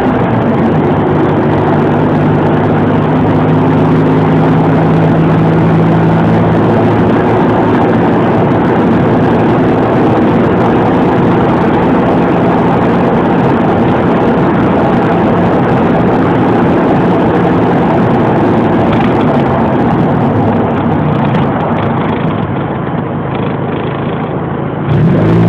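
Car engine, an Audi A4's, running at a fairly steady speed while driving, under heavy wind noise on the phone's microphone. Near the end the sound dips briefly, then comes back up.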